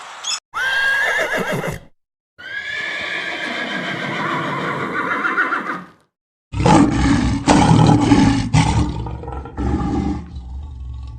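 Horse whinnying in short clips cut one after another: a brief call that rises and then wavers down, then a longer call, then a louder, rougher, deeper call broken by sharp strokes.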